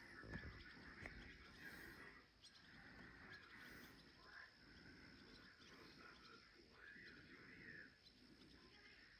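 Faint insect chorus: a steady high trill with softer chirps coming and going about once a second.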